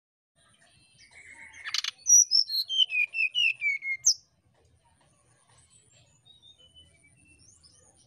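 Brown-chested jungle flycatcher singing: a short buzzy phrase, then a clear run of about eight short whistled notes stepping down in pitch, ending in a sharp high downward note, followed by a few faint notes.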